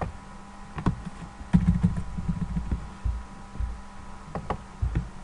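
Clicks and soft low thumps from a computer mouse and keyboard being worked on a desk, coming irregularly with a cluster about a second and a half in, over a steady low electrical hum.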